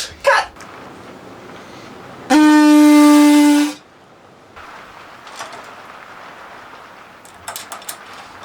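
A single horn-like toot, held on one steady pitch for about a second and a half, loud against the quiet workshop noise around it.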